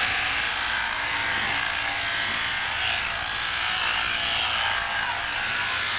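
Electric sheep-shearing handpiece on an overhead drive running, its cutter driving across the comb through the fleece on a long blow: a steady buzz that starts abruptly and stops near the end.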